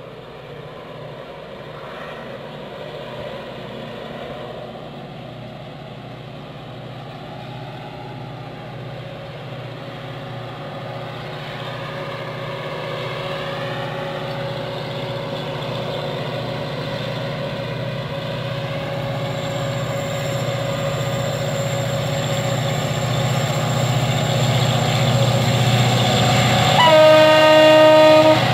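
Diesel locomotive approaching, its engine hum growing steadily louder, then a blast of the horn lasting about a second and a half near the end.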